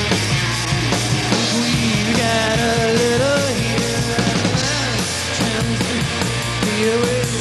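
Rock band playing: distorted electric guitars, bass and drums, with a lead line that bends and slides in pitch.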